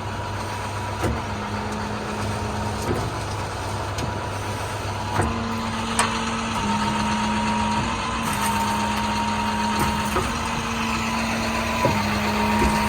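International 4300's MaxxForce DT diesel engine running at idle with its PTO engaged. A steady mechanical whine shifts up and down in pitch in steps several times, and a few sharp clicks sound over it.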